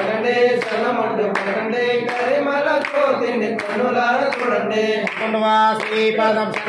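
Voices singing an Ayyappa devotional bhajan, with sharp hand claps keeping time.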